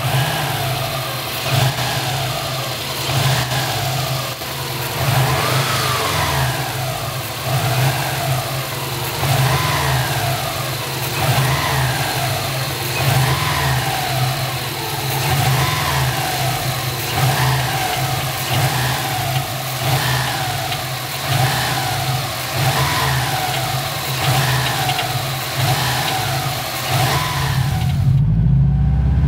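Turbocharged Subaru flat-four engine revved up and let fall again and again, every couple of seconds, with a metallic rattle as the revs drop that the owner places at the turbo. Near the end the revving stops and a low, steady hum takes over.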